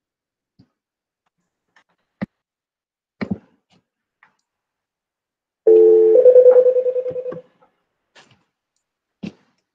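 Telephone tone coming over the call audio as a phone dials in to the meeting: a loud electronic tone of about a second and a half, first several steady pitches together, then a single pulsing pitch that fades out. A few faint clicks come before it.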